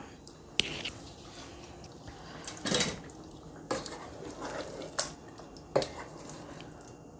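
A spoon clinking and scraping against a cooking pot as fried capsicum and onion are spooned onto a thick curry: several sharp clinks and a longer scrape about three seconds in.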